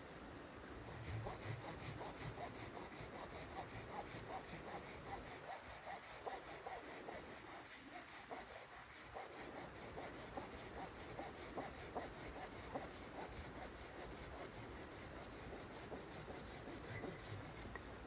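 Red-handled hand pruning saw cutting through a wooden branch: a steady, even rhythm of back-and-forth rasping strokes that stops shortly before the end as the round is cut through.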